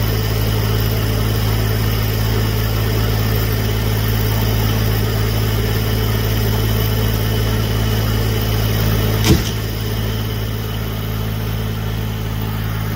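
Engine of a bucket truck running steadily at idle, with a single sharp knock about nine seconds in, after which the engine sound is slightly quieter.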